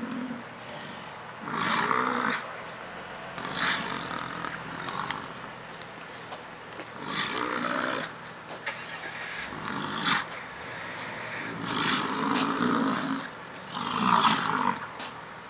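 American bison bulls bellowing during a fight: a series of deep, rough roars, about six in all, each lasting around a second, coming every two to three seconds.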